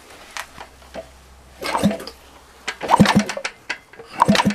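Suzuki TS two-stroke motorcycle engine being kicked over during a spark check with the spark plug out: irregular clunks and a rushing sound, with the loudest knocks about three seconds and four seconds in.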